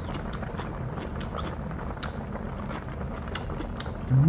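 A person eating hot soup with chopsticks: scattered small clicks of chewing and of chopsticks on the bowl over a steady low room hum, with a short rising hummed "mm" near the end.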